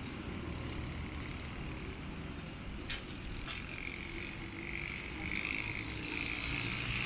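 Outdoor street ambience: a low, steady rumble of traffic, with a couple of sharp clicks about three seconds in and a high, steady trilling call joining about four seconds in.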